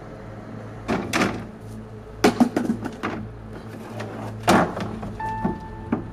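Hard plastic wheelie recycling bin knocked and rattled as it is opened and rummaged through: several hollow thumps and clatters in clusters, over soft background music.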